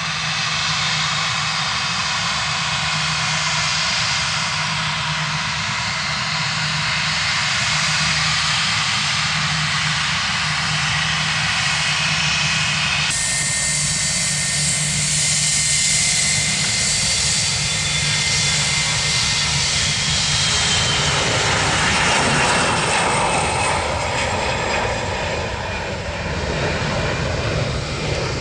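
Jet airliner engines running at high power close by: a loud, steady rush with a thin high whine. The sound changes abruptly about halfway through and grows fuller toward the end.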